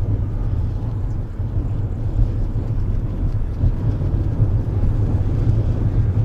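Dewoitine D.26 radio-controlled scale model airplane flying overhead, its motor and propeller a steady low drone.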